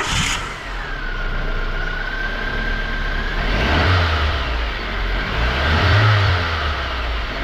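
A 2007 Nissan Sentra GSX engine catches right at the start and settles to a steady run with a whine, then is revved up twice and let fall back. It now starts quickly and revs freely on a new fuel pump and fuel filter, after hard starting and low power.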